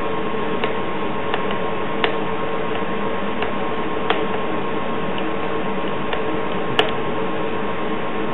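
Flathead screwdriver turning out a motorcycle brake lever pivot bolt: about six light, sharp clicks at uneven intervals. A steady hum and hiss runs underneath.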